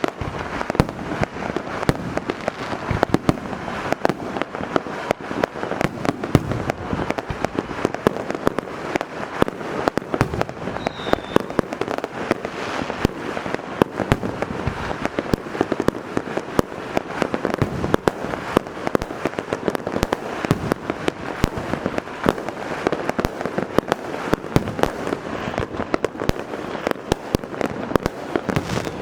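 Firework cakes firing in a continuous barrage: a dense, rapid run of bangs and crackles with no break.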